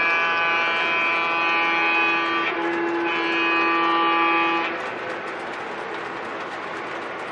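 Model freight train's sound system sounding two long chime-like horn blasts, the first about two and a half seconds long and the second about a second and a half, over the steady rumble of the cars rolling on the track.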